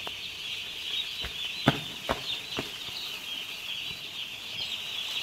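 A large flock of young chicks peeping in a dense, continuous high chorus. Four short knocks come between about one and two and a half seconds in, the second the loudest.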